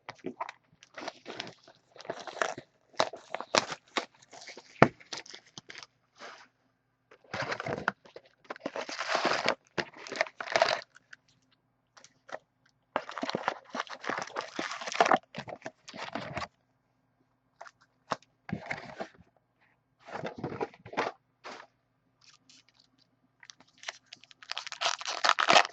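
Trading card packaging being torn open and handled: bursts of wrapper crinkling and tearing with sharp crackles, separated by short pauses.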